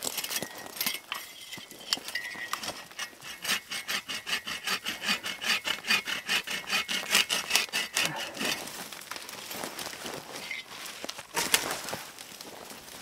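Hand saw cutting through dry, dead pine branches in even back-and-forth strokes, about four a second, for several seconds. A single sharp crack comes near the end.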